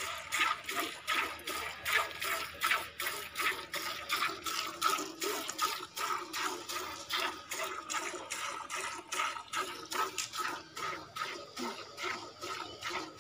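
Cow being milked by hand: jets of milk squirting rhythmically into a steel bucket, about two to three squirts a second.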